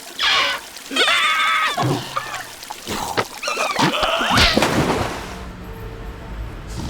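Cartoon soundtrack: short, wordless, pitch-gliding character vocalizations and sharp comic sound-effect hits over music, settling into a steadier low sound for the last couple of seconds.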